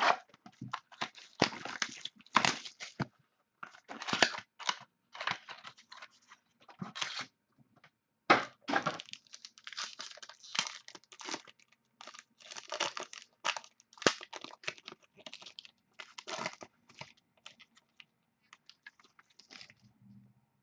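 Trading card pack wrapper being cut open with scissors and torn, the wrapper crinkling and rustling in irregular bursts.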